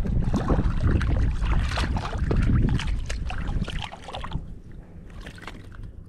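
Wind buffeting the microphone over water splashing and handling noise, busy and loud for the first four seconds, then quieter.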